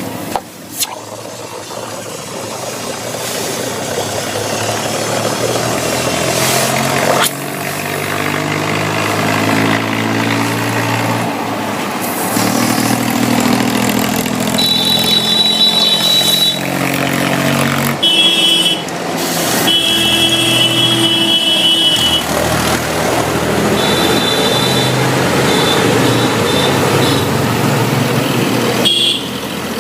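An engine running steadily, its pitch shifting now and then. A thin high whine comes and goes in the second half.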